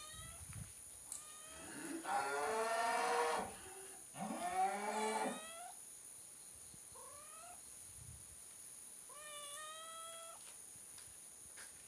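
Animal calls at a cattle farm: several drawn-out, pitched cries, the two loudest about two and four seconds in, then fainter, shorter ones near seven and nine seconds.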